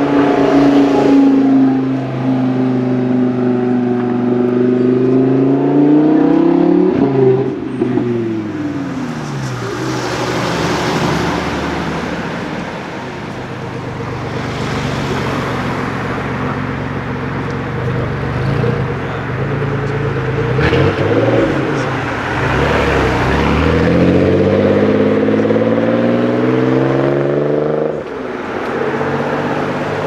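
Audi R8's V10 engine running as the car rolls past, its pitch bending down about seven seconds in. This is followed by a stretch of mixed street traffic noise, then another sports car's engine climbing steadily in pitch as it accelerates, dropping back near the end.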